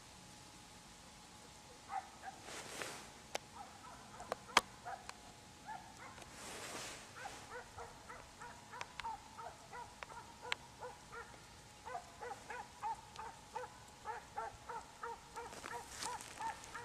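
Faint yelping of a mixed-breed hunting dog baying on a hare's scent: rapid, repeated high yelps, two or three a second, starting about two seconds in and getting busier through the second half.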